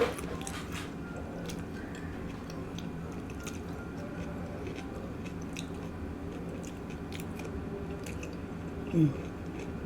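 Close-up chewing and biting of food, with wet, clicky mouth sounds, over a steady low hum. About nine seconds in comes a short, loud low sound from the throat that falls in pitch.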